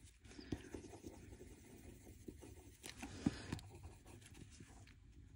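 Derwent Lightfast coloured pencil scribbling on paper: a faint, uneven scratching, with a small sharp knock about three seconds in.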